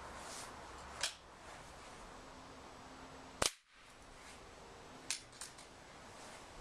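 Break-barrel pellet gun firing once, a sharp crack about three and a half seconds in, as the pellet strikes the laptop's plastic lid. Lighter clicks come about a second in and a few times near the end.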